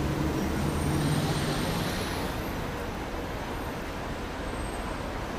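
Steady city street noise of traffic, with a vehicle engine's low hum loudest in the first two seconds and then fading into the general din.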